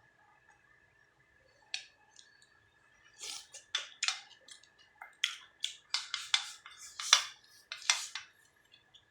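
Eating from bowls: a run of short scrapes and clicks of utensils against dishes, starting about three seconds in and repeating irregularly for several seconds.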